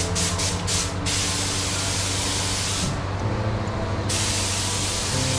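Paint spray gun hissing with compressed air: a few short trigger bursts, then a long continuous hiss that breaks off for about a second near the middle and resumes. A steady hum runs underneath.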